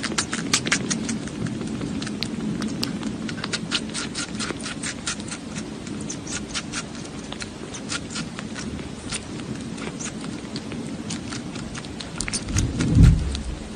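Kitten suckling from a feeding syringe: rapid, irregular clicking and smacking of its mouth. A brief low rumble near the end.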